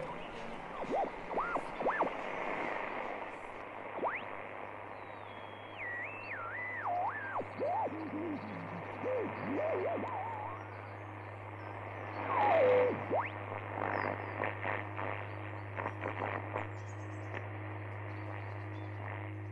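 Electronic sound design: wavering tones that slide up and down in pitch over a low steady hum, with a softly pulsing tone coming in about halfway and a flurry of clicks a little later.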